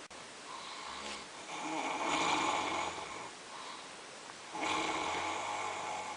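A sleeping person snoring: two long snores, the first about a second and a half in and the second about four and a half seconds in, with quieter breathing between.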